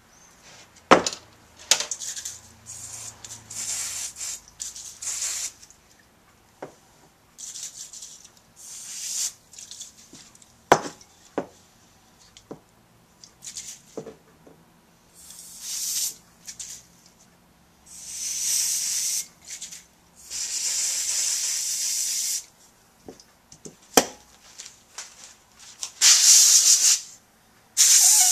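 Compressed-air blow gun giving several short hissing blasts, the longest about two seconds, through a small carburetor pilot jet to clear it of dirt, with a few sharp clicks between.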